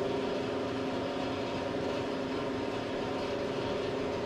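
Steady machine hum with a couple of fixed low tones, unchanging throughout.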